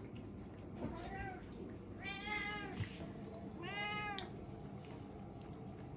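Domestic cat meowing three times: a short call about a second in, then two longer meows that rise and fall in pitch. A single light click comes just after the second meow.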